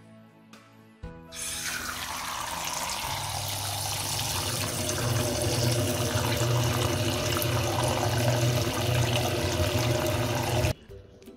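Kitchen tap running hard into a glass bowl of water and green olives, a steady splashing rush that cuts off suddenly near the end.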